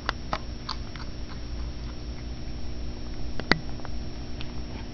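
Kitten eating raw beef cubes from a ceramic bowl: scattered sharp clicks and taps of chewing, the loudest about three and a half seconds in.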